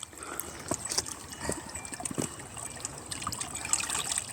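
Spring water running from a fountain spout, trickling and splashing steadily with small irregular drips and splashes.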